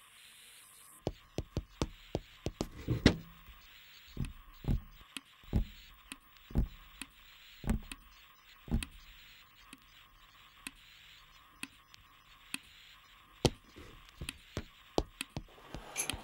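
Sharp knocks and taps at uneven intervals, a cluster in the first few seconds, then a run of single strokes about a second apart in the middle, and scattered ones later, over a faint steady hum.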